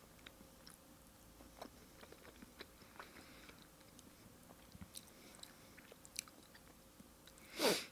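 Faint wet chewing and small mouth clicks of someone eating raw fish sashimi, with one louder short mouth sound near the end.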